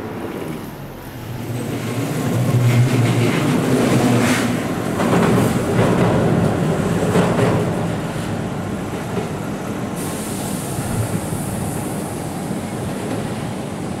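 Tobu 8000-series two-car electric train running on the track. Its wheels knock over rail joints, loudest a few seconds in, before settling into a steadier running noise.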